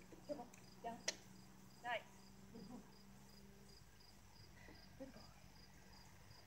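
Faint crickets chirping steadily, about three chirps a second. A sharp click comes about a second in and a brief sweeping call just before two seconds.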